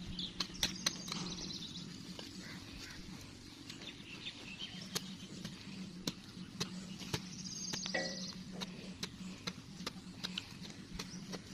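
Knife blade stabbing and scraping into dry soil, a scattered run of sharp knocks about once or twice a second. Birds chirp in the background near the start and again about two-thirds of the way through, over a steady low hum.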